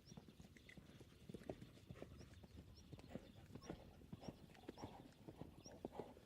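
Hooves clip-clopping at a walk: quiet knocks, several a second in an uneven rhythm, with a faint short high chirp repeating about once a second.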